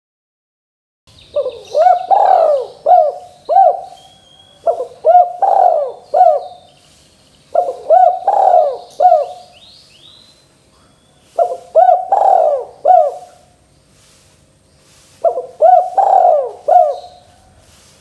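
Spotted dove cooing: five phrases starting about a second in, each a run of several rounded coos lasting about two seconds, with pauses of a couple of seconds between phrases.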